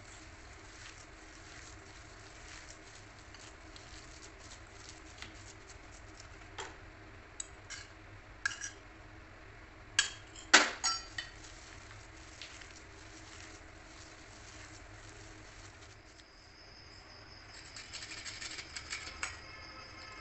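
Hands squishing and kneading a soft mashed-potato-and-pea mixture in a stainless steel bowl, with faint soft ticks. About halfway, a few sharp metallic clinks as a small steel bowl of breadcrumbs knocks against the big steel bowl, the loudest sounds here. Near the end, fast scraping of nutmeg on a hand grater.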